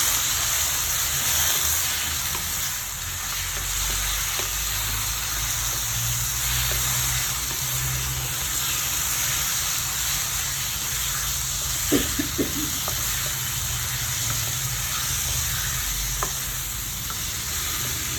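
Marinated chicken pieces sizzling as they fry in a pan of browned spice masala, with a few short clicks of a spoon against the pan about twelve and sixteen seconds in.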